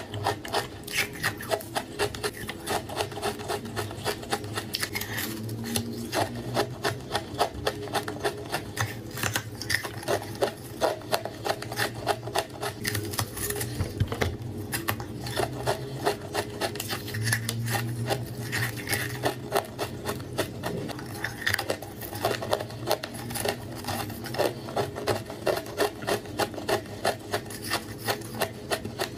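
Close-up crunching and chewing of a block of frozen Tartary buckwheat ice: a steady run of crisp cracks, several a second.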